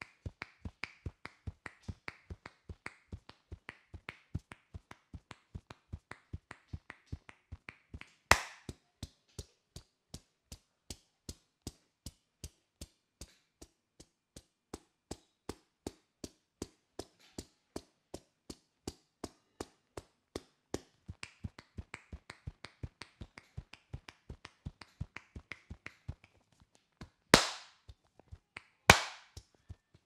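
Hair cracking: tufts of hair gripped and snapped sharply between the fingers, giving a steady run of crisp clicks about three a second. Three much louder cracks stand out, one about eight seconds in and two near the end.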